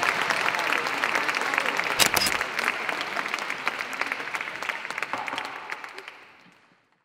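Audience applauding, fading out near the end. One louder thump comes about two seconds in.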